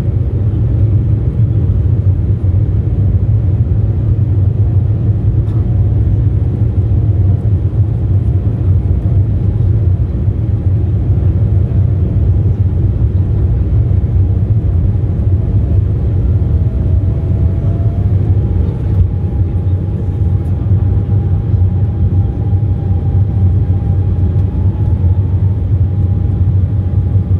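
Embraer 190 airliner's twin GE CF34 turbofans at full takeoff power, heard inside the cabin as a loud, steady low rumble through the takeoff run and lift-off. A faint whine rises in pitch about two-thirds of the way through, then holds.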